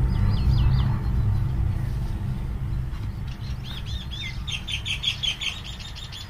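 Small birds chirping: a few quick down-sweeping chirps near the start, then a fast run of repeated chirps from about three seconds in.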